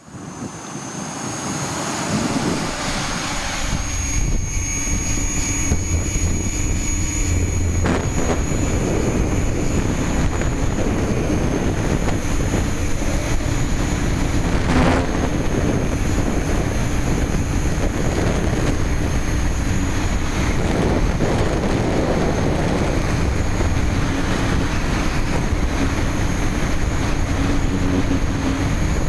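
A hexacopter's six rotors running steadily in flight, heard close up through a keychain camera mounted on the frame, with a thin high whine over the hum.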